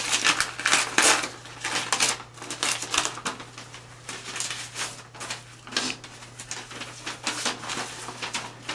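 Sheet of paper rustling and crinkling as it is unfolded and handled, in irregular short rustles.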